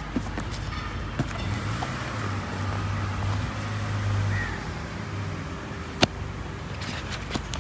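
Low engine hum of a motor vehicle that swells over a few seconds and fades. Sharp clicks of cardboard and packaging being handled run over it, the loudest a single click about six seconds in and a cluster near the end.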